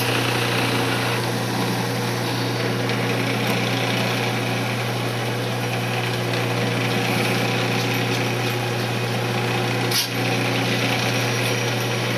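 Wood lathe motor starting up and running steadily at low speed with a hum, while the small cocobolo ring is sanded with a wax and mineral oil paste. There is one brief dip and a click about ten seconds in.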